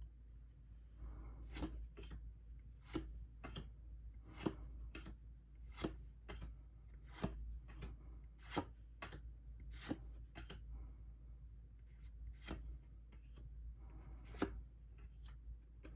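Pokémon trading cards being handled one at a time, each flip or slide making a crisp tap or snap, about one a second with a short pause near the end.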